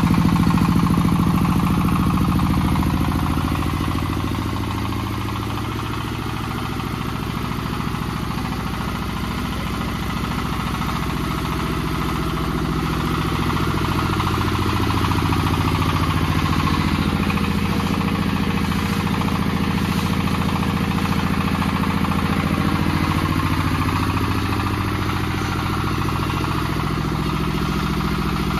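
Changfa single-cylinder diesel engine running steadily, belt-driving a small combined rice mill, with the mill's whirring mixed in. The engine's pitch shifts slightly a few times.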